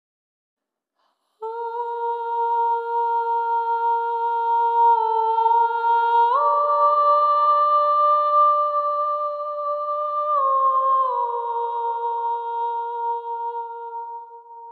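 Background music: a slow, wordless melody of a few long held notes, starting about a second and a half in, stepping up in pitch about six seconds in and back down around ten seconds.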